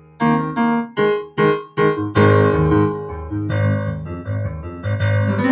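Keyboard playing a piano sound: a quick string of short, detached chords, then fuller chords held over a deep bass note from about two seconds in.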